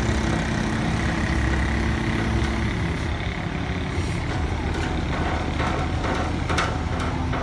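Heavy construction machine's diesel engine running steadily; its low hum drops away about two and a half seconds in, and a few light knocks come near the end.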